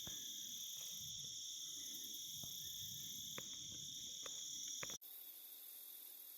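A faint, steady chorus of crickets and other insects trilling at two high, even pitches, with a few faint ticks. About five seconds in, the higher trill cuts off suddenly and only the lower one carries on.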